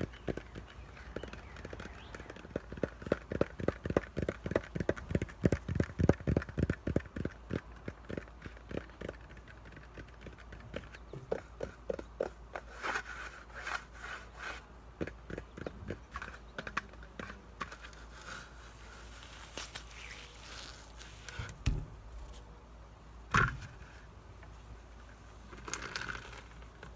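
Fingers tapping on a block of floral foam, a quick even run of light taps about four a second for the first eight seconds or so, then slower scattered taps and scratching, with two louder knocks near the end.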